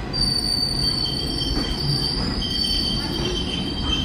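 Indian Railways ICF passenger coaches rolling slowly past. The wheels give a steady, high-pitched metallic squeal over a low rumble, and a second, lower squeal tone comes and goes, holding steady from about halfway through.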